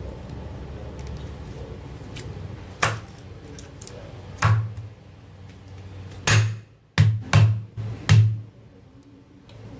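Cleaver chopping lemongrass stalks on a wooden cutting board: about seven sharp knocks with a low thud, two spaced apart, then a quick run of five blows about two-thirds of the way in.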